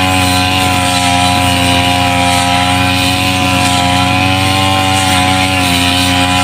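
Brush cutter's small engine running at a steady speed.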